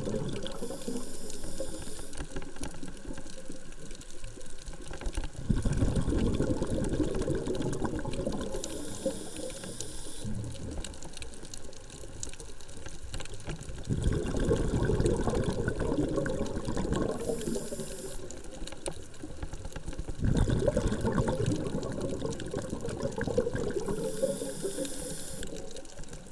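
A scuba diver breathing through a regulator underwater: a short hiss on each inhale, then a long gurgling rush of exhaled bubbles, about four breaths in a slow, even cycle.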